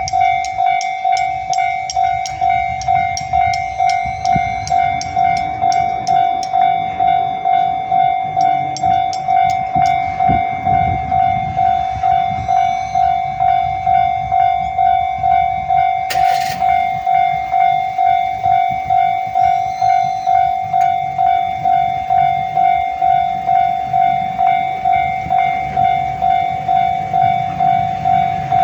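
Japanese level crossing's electronic warning bell ringing in an even, repeating single tone, a little under two strikes a second. For roughly the first ten seconds a passing train adds low rumble and rhythmic wheel clicks over the rail joints, and a short, sharp burst of noise comes about halfway through.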